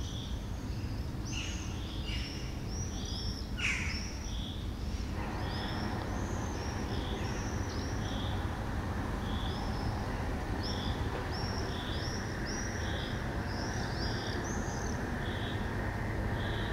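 Small songbirds chirping: a stream of short, high chirps together with one note repeated about once a second. Underneath is a steady low background rumble.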